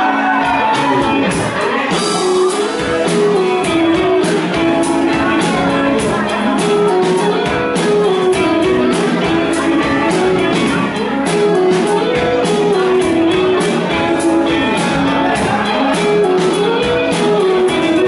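Rock band playing live and loud: electric guitar and bass guitar over drums, a repeating guitar line running through the passage.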